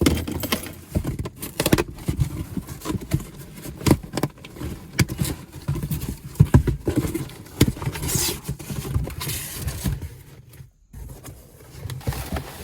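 Hands unpacking a parcel: packaging being opened and rummaged through, with many short knocks, clicks and rustles and a longer rustle about eight seconds in.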